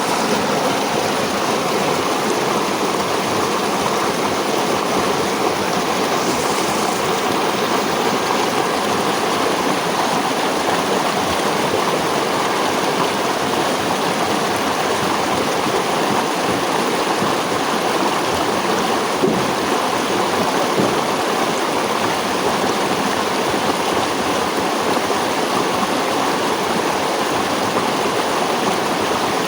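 Running water of a natural stream, flowing steadily without a break. There is one brief faint tap about two-thirds of the way through.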